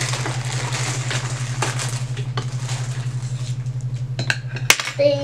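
Light clicks and clatter of small plastic paint pots and paintbrushes being handled on a tabletop, with one sharp click near the end, over a steady low hum.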